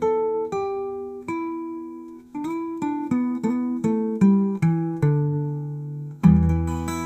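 Blues guitar music: single plucked notes over a low bass, with a louder strummed chord about six seconds in.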